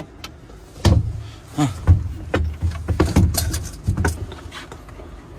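Irregular knocks, clicks and rustling handling noises for about three seconds as a network cable and its plug are pulled out and handled.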